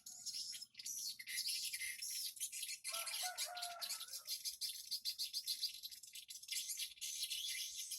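Dense, continuous high-pitched twittering of swiftlets, many rapid chirps overlapping. About three seconds in, a lower chirping call joins for a little over a second.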